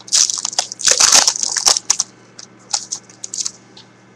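Foil trading-card pack wrapper crinkling as it is torn open, in a dense run of sharp crackles over the first two seconds, then a few lighter rustles.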